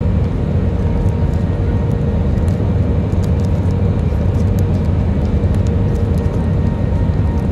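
Cabin noise of an Airbus A319 rolling down the runway after touchdown: a steady, loud low rumble of engines and wheels, with a faint steady whine and light rattling clicks.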